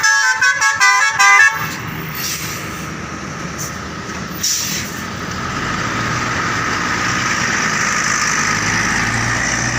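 A bus's telolet basuri horn, a multi-note musical air horn, plays a quick tune of stepped notes that stops about a second and a half in. Then the bus engine runs with road noise, growing louder from about five seconds in as the bus drives in.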